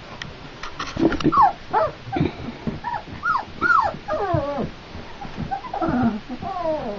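Flat-coated retriever puppies, about three and a half weeks old, whimpering and squeaking. Many short, high cries, mostly falling in pitch, begin about a second in and keep coming, often overlapping.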